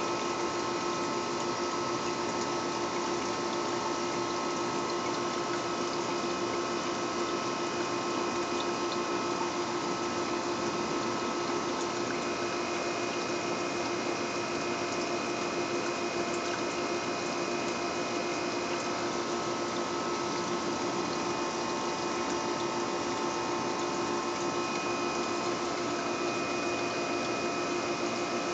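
Aquarium filter pump running steadily: a constant rush of moving water with a steady motor hum.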